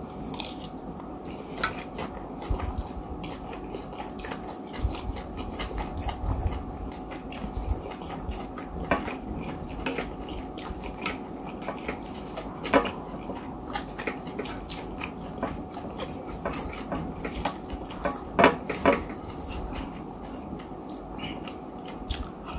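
Close-up chewing and mouth sounds of a person eating oil rice, with a plastic spoon scraping and tapping the plate. Many small clicks run throughout, and a few sharper ones stand out, the loudest a little after halfway and about four-fifths of the way through.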